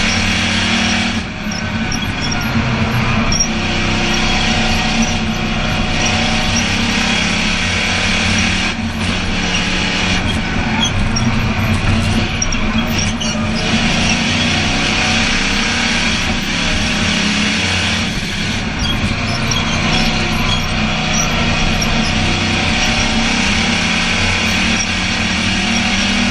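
Short-track race car's engine running hard at racing speed, heard from inside the cockpit over wind and road noise, its pitch shifting a little as the car goes around the oval. The sound dips briefly about a second in.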